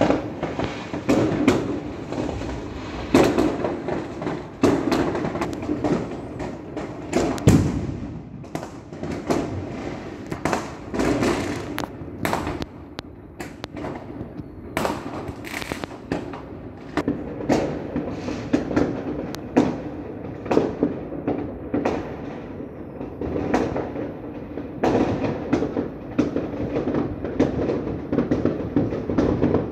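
Fireworks and firecrackers going off all over a city: a dense, irregular barrage of bangs and crackling with no pause.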